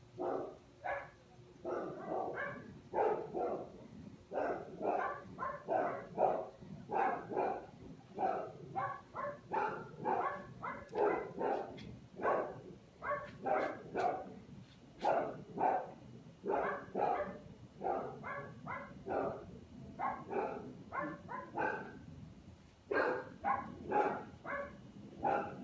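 Several dogs barking in an uproar, with rapid, overlapping barks a few times a second and a brief lull near the end. They are set off by a hot air balloon flying low overhead.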